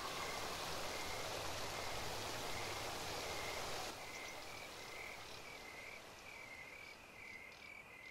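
Faint outdoor ambience: a steady hiss, and from about four seconds in a frog calling in a regular series of short, high chirps.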